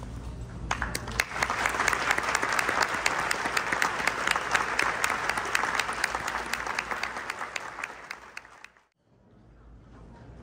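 Audience applauding: many hands clapping, swelling in about a second in, holding steady, then dying away and cutting off near the end.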